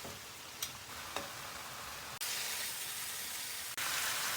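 Food sizzling in hot oil in a pan, with a couple of light clicks early on; the sizzle gets louder abruptly twice, about two seconds in and again near the end.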